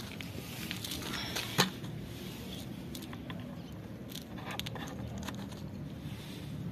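A cat eating dry kibble off the ground, a scatter of small sharp crunches and crackles, with one louder click about one and a half seconds in. Low wind rumble on the microphone underneath.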